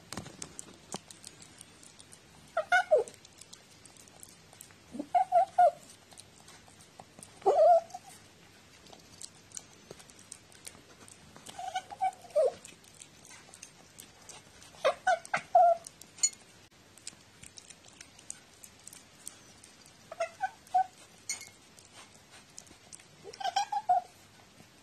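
Cat making short mewing calls while eating from a plate: seven brief cries a few seconds apart, word-like enough to be taken for a 'talking cat'. Faint clicks between the calls.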